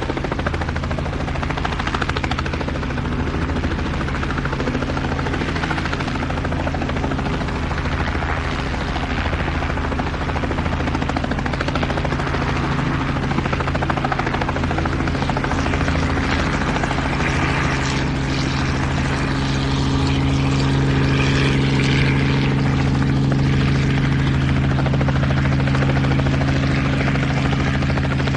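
Helicopter in flight heard from inside the cabin: a steady drone of engine and rotor, getting a little louder about two-thirds of the way through.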